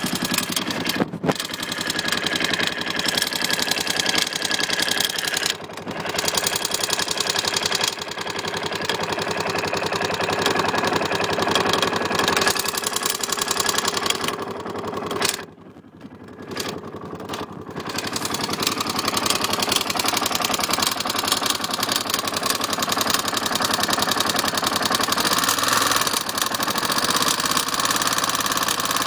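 KTM LC4 single-cylinder four-stroke engine running with a fast, steady clicking: the decompressor is clicking because the manual decompressor was not adjusted during reassembly. The sound briefly drops away a little past halfway, then returns.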